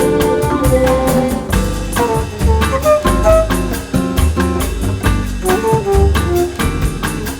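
Background music: an upbeat jazz-style track with drum kit keeping a steady beat, bass and a melodic horn line.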